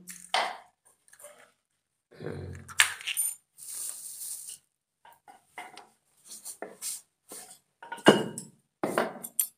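Eggs being cracked against a steel tumbler: scattered clinks and taps of shell on metal, the sharpest about eight seconds in, with a plastic bag rustling as another egg is taken out.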